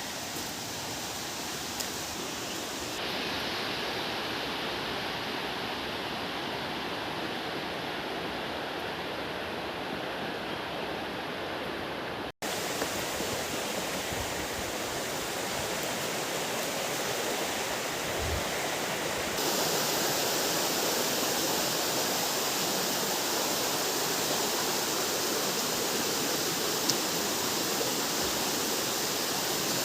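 Steady rushing of water from a waterfall, a continuous noise that grows a little louder in the second half, with a brief cut-out about twelve seconds in.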